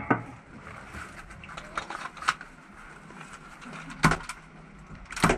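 A handful of sharp knocks and clicks, irregularly spaced, over a low steady background. The loudest come at the very start, about four seconds in, and near the end.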